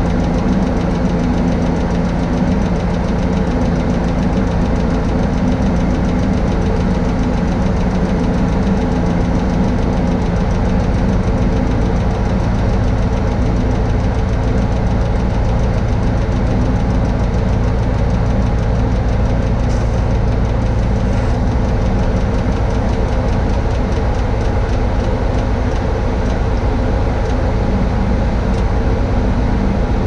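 Diesel engine of a Tadano 180G-5 all-terrain crane running steadily under the lift, its tone changing slightly about twelve seconds in.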